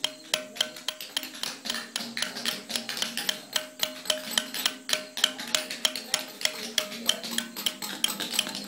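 Small hammer striking a hand chisel into a carved stone block: quick, even metal-on-metal taps, about three a second, as the chisel cuts the stone.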